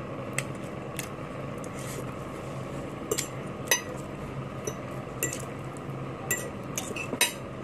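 A metal fork clinking and scraping against a ceramic bowl of fried noodles while eating, with several short sharp clinks scattered through, over a low steady hum.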